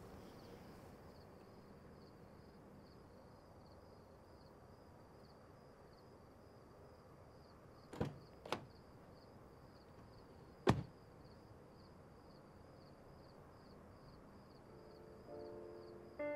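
Faint night ambience with insects chirping in a steady pulsing rhythm. Two sharp knocks close together about halfway through, then a louder one a couple of seconds later; piano music begins near the end.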